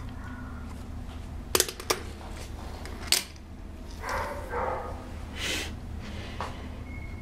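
Domestic shorthair cat purring steadily, under a few sharp clicks about one and a half and three seconds in, the loudest sounds here. A dog barks a few times in the background about four to five seconds in.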